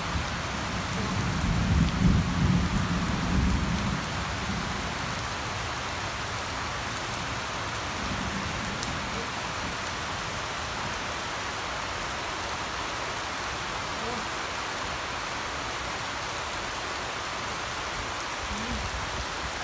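Steady rain falling on wet ground and puddles, an even hiss. A loud low rumble comes in about a second in and fades by about four seconds.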